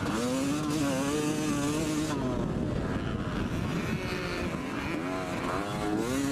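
Yamaha YZ250 two-stroke single-cylinder motocross engine revving under acceleration, heard from on the bike. Its pitch climbs and holds, drops about two seconds in, then climbs again near the end.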